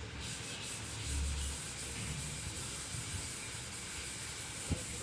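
Dump truck's engine running at low revs under a steady rough hiss, with one short knock near the end.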